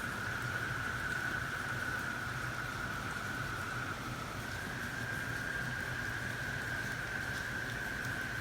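A nighttime-style chorus of frogs and insects: one continuous high-pitched trill holds steady, dipping slightly in pitch about halfway through, over the hiss of falling rain.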